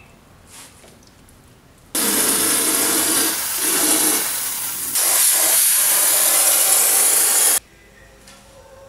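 Loud, steady hiss of a pressurised spray. It starts abruptly about two seconds in, dips briefly around the middle and cuts off suddenly near the end.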